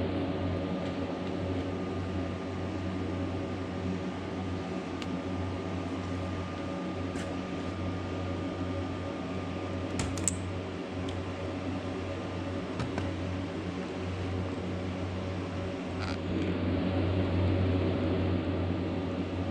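Steady hum of a running fan or motor, with a few faint light clicks and taps scattered through it.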